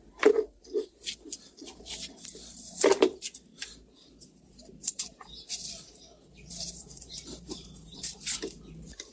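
Hands handling the speaker's battery pack and small parts: irregular light clicks, taps and rustling.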